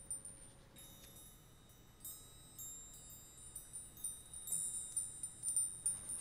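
High-pitched wind chimes tinkling, with scattered strikes whose tones ring on and overlap. They become busier and louder in the second half.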